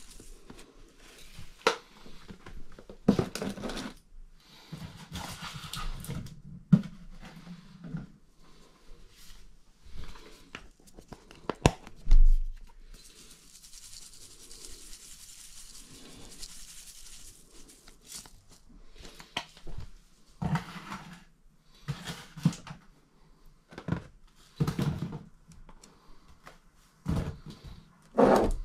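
Spice shaker jars shaken and tapped over a pot, with irregular clicks and knocks, a heavier thump about twelve seconds in, and a few seconds of soft hissing as dried herbs pour out onto the meat.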